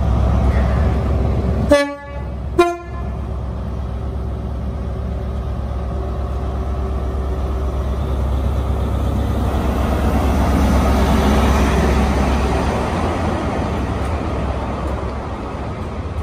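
Train horn sounded twice in quick succession, a higher note then a lower one, followed by a train passing with a steady rumble that builds to a peak near the middle and then fades.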